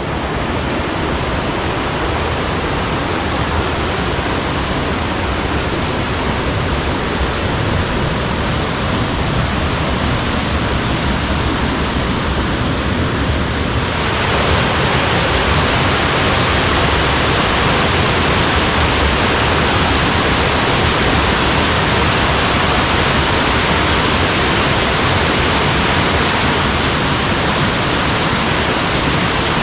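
Mountain valley stream rushing, a steady wash of water noise that turns louder and hissier about halfway through.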